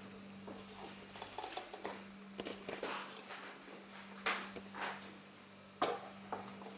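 Handling noises: a scatter of light clicks and knocks, the sharpest about four seconds in and again near six seconds, over a steady low electrical hum.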